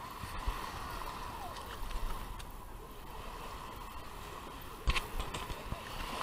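Small waves lapping and washing over the sand at the water's edge, close to the microphone, with a sudden knock or splash against it about five seconds in.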